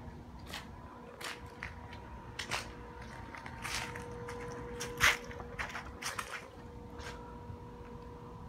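Footsteps on brick pavers: a string of irregular scuffs and taps, the loudest about five seconds in, over a faint steady hum.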